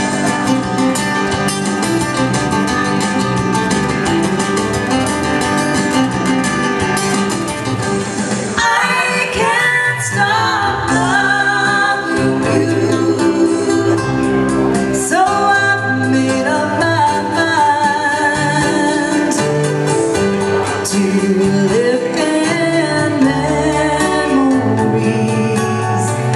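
A song with instrumental backing: it opens with the band alone, and a voice starts singing about a third of the way in.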